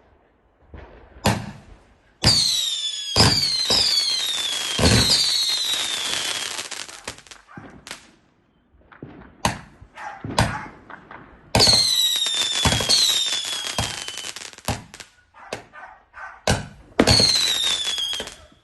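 Fireworks going off in clusters: sharp bangs, several of them followed by high whistles that fall in pitch and fade over a couple of seconds, with crackling and smaller pops between.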